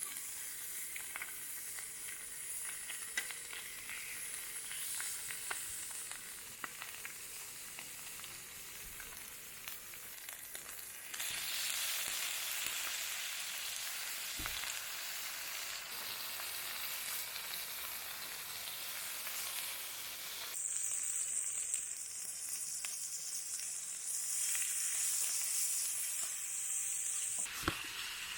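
Food sizzling as it fries in a hot pan, a steady hiss that grows louder about eleven seconds in.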